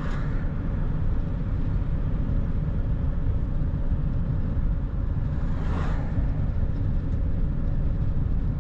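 Steady low road and engine rumble of a vehicle driving at highway speed. About six seconds in, a brief whoosh as an oncoming vehicle passes.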